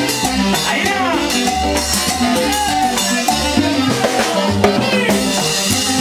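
Live Colombian tropical dance band playing, with saxophone, keyboards, drums and Latin percussion keeping a steady dance beat.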